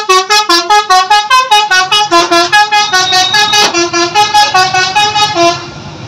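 Indonesian bus telolet horn, a multi-tone melody air horn, playing a fast tune of short notes, about six a second, hopping up and down in pitch. It cuts off suddenly near the end, leaving low traffic rumble.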